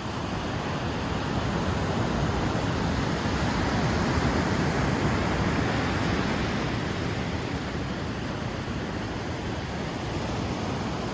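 Ocean surf: a steady rushing wash of breaking waves that builds over the first few seconds and then slowly eases.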